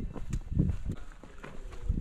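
Footsteps on a sandy dirt trail: an irregular run of steps and knocks, with heavier thumps about half a second in and near the end.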